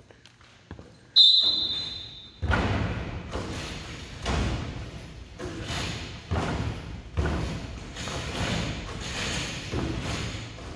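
A short high tone, like a start signal, about a second in. From about two and a half seconds in come basketballs shot in rapid free throws, thudding and bouncing on the hardwood gym floor about once a second, in a large echoing gym.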